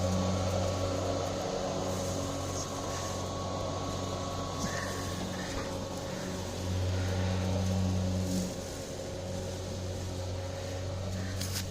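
Lawn mower engine running steadily with an even hum, briefly louder a little past halfway.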